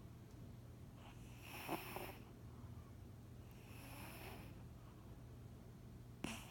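Sleeping cat snoring faintly, three breaths about two and a half seconds apart, the last one short and sharp.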